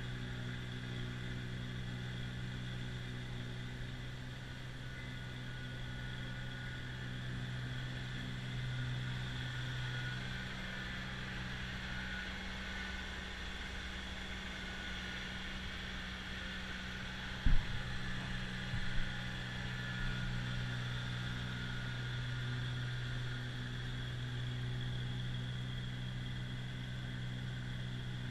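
Kubota BX2660 compact tractor's three-cylinder diesel running steadily under load while its front-mounted snowblower clears snow. There is a single sharp knock about two-thirds of the way through, followed by a couple of smaller knocks.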